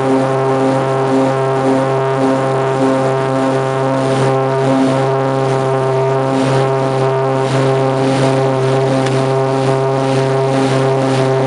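Cessna 402's twin turbocharged six-cylinder piston engines and propellers heard from inside the cabin: a loud, steady drone with a regular throb a little under twice a second.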